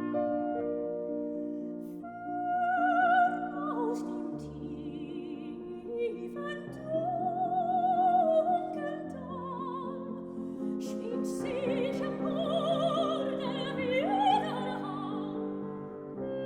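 Classical art song: an operatic soprano sings long phrases with wide vibrato over piano accompaniment. Several phrases swell loudest around three seconds, eight seconds and fourteen seconds in.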